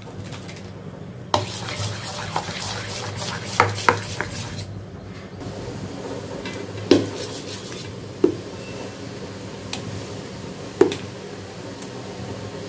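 A steel spoon stirring thick dal batter in a steel bowl, scraping and churning for a few seconds, with several sharp clinks of the spoon against steel spread through. Near the end the batter is spooned into a steel plate.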